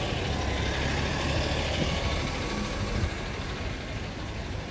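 A motor vehicle's engine running, a steady low sound over general street noise.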